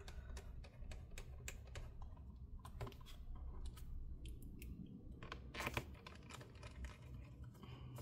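Faint scattered clicks and taps from an ASUS ROG Zephyrus M16 laptop's bottom cover as it is pressed into place and its screws are driven back in with a small screwdriver. A few louder clicks come a little past the middle.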